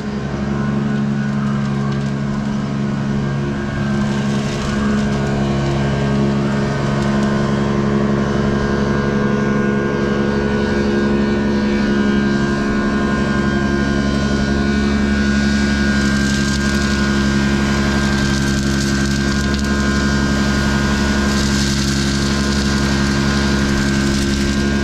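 An engine running steadily at a constant speed: a loud, unchanging hum with a low rumble and no revving.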